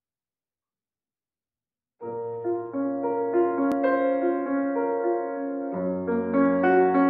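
A grand piano starts playing about two seconds in: a flowing figure of repeated notes over sustained bass notes, with a deeper bass note entering about four seconds later.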